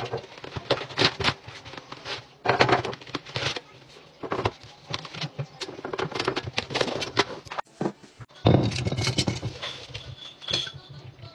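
Close handling sounds of laundry restocking: sharp taps and clicks against a laundry tin and rustling as a stack of dryer sheets is pulled from its box and pushed into the tin. Near the end, louder knocks and clatter as plastic detergent jugs are set on the stone countertop.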